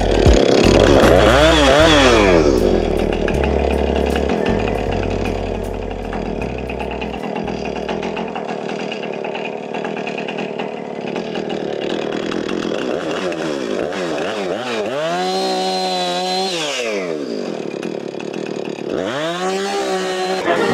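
Husqvarna chainsaw cutting through fallen trees, revving up and dropping back a few times with steady stretches between.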